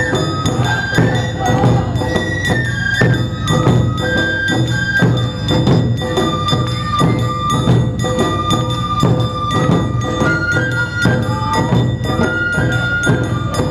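Traditional Japanese-style festival music: a held high melody line over a fast, steady percussion and drum beat.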